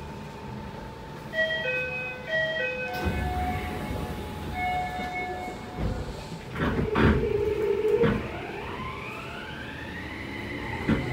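Door chimes sound twice, then steadier chime tones, and the doors thud shut about seven seconds in. A second later the Toei 6300 series train's Mitsubishi IGBT-VVVF inverter starts up, its whine rising in pitch as the train pulls away.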